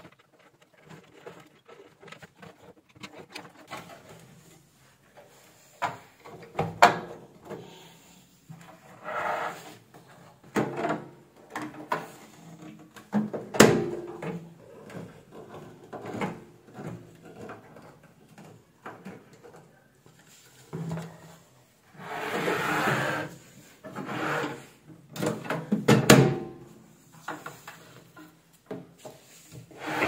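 Handling noise from a microwave oven being reassembled: the control panel and its circuit board are fitted back into the sheet-metal chassis, giving scattered clicks, knocks and scraping, with a few sharper knocks.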